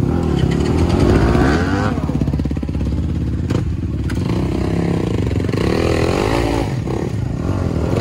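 Motocross bike engines revving up and down, the pitch rising and falling several times. Two short sharp knocks come about three and a half and four seconds in.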